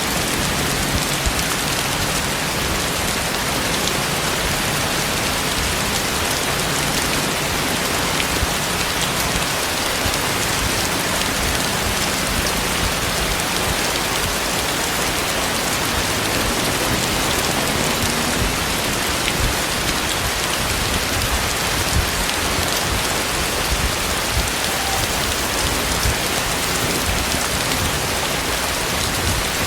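Heavy tropical rain falling steadily, drops pelting hard surfaces in a dense, even hiss.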